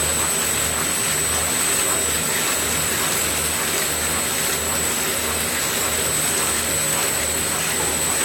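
Automatic box gluing machine running: its conveyor belts and drive motor make a steady mechanical noise with a low, regularly pulsing hum and a constant high-pitched whine.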